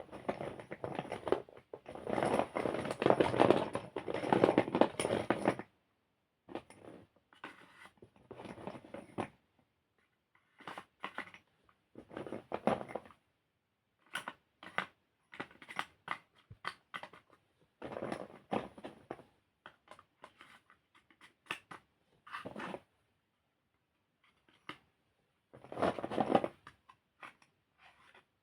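Chalk crumbling: dry crackling and crunching in irregular bursts with short silent gaps between them. The longest, loudest stretch comes in the first few seconds.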